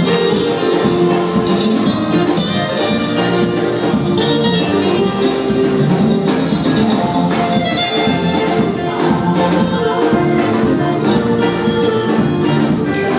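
Choir singing with live band accompaniment, electric guitar and drums keeping a steady beat.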